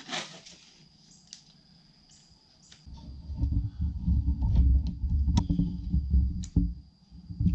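Blue painter's tape being handled and wrapped onto a bicycle frame: a few faint clicks and rustles over a faint steady high whine. From about three seconds in a low rumble comes in under the clicks and fades near the end.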